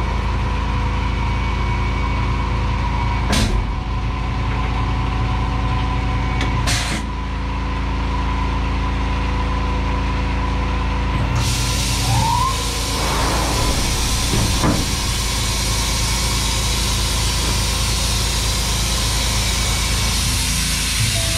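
Tormach 1100M CNC mill running with a steady machine hum; two short sharp bursts come a few seconds apart. About halfway a steady air hiss starts, with a short rising whine as the spindle comes up to speed for a 1/4-inch chamfer mill on aluminum.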